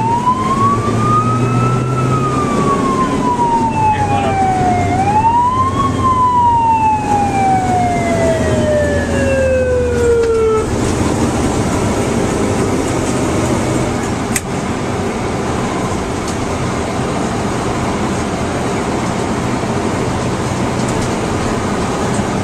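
Fire engine siren winding up to a high pitch, sliding down, rising again and then gliding down slowly before cutting off abruptly about ten seconds in. Under it and after it the truck's engine runs steadily, heard from inside the cab.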